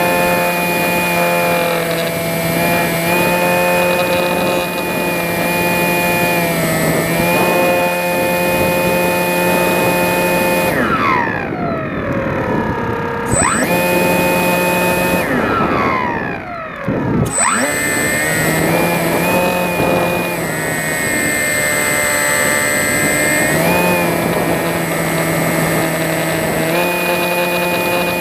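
Electric motor and propeller of a Sky Eye RC glider whining steadily at constant throttle. Twice the pitch falls away and swings back up as the throttle is eased off and reopened.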